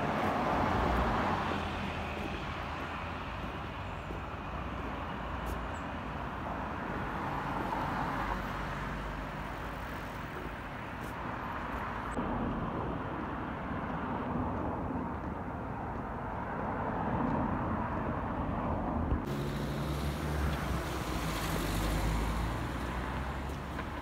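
Road traffic: cars passing on a street, the noise swelling and fading several times over a low rumble.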